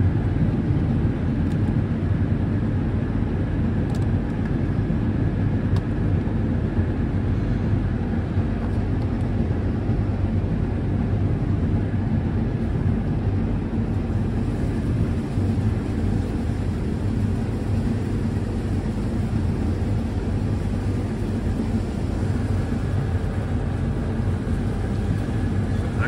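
John Deere S790 combine running under load while cutting yellow peas, heard from inside the cab: a steady low drone from the engine, threshing and header, with no change in pitch or level.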